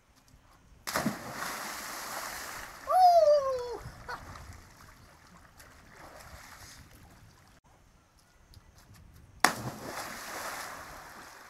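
Two splashes of someone jumping into a deep river pool, about a second in and again near the end. A person's falling cry comes about three seconds in.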